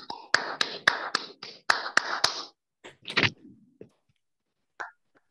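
Hand clapping from several people, heard through a video call: dense for about two and a half seconds, then a few scattered claps before it dies away.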